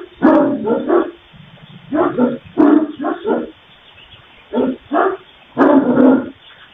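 A dog barking repeatedly, in short loud barks that come in uneven groups.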